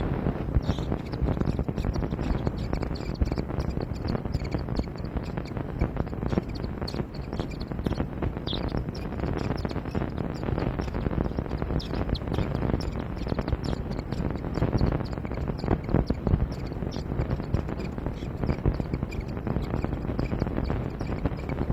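Birds calling in short, scattered chirps over constant irregular clattering and scuffling noise.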